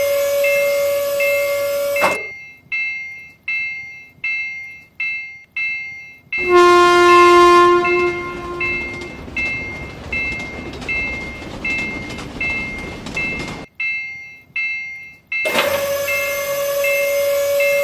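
Japanese railroad crossing alarm ringing its two-note kan-kan bell, a little under two strikes a second, while a train horn sounds for about two seconds. A train then rushes past with a lower horn blast, the bell ringing on, and near the end the horn sounds again.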